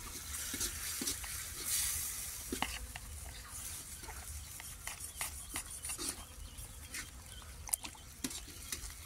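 Wet handling of a whole catfish being gutted by hand in a basin: scattered small clicks and squelches as the innards are pulled out, with a knife cutting into the fish.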